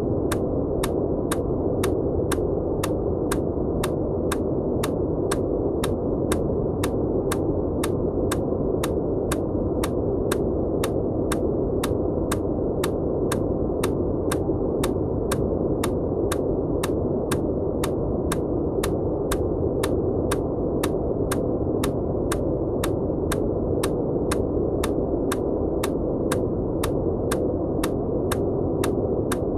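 Steady, muffled white noise with short, sharp clicks repeating evenly about twice a second: the bilateral tapping of an EMDR audio track.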